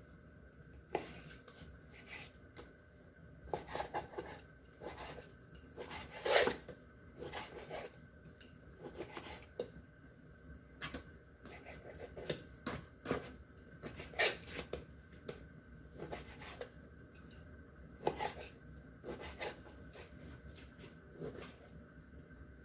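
A kitchen knife slicing raw chicken breast, with irregular sharp knocks of the blade on the cutting board and some scraping between cuts.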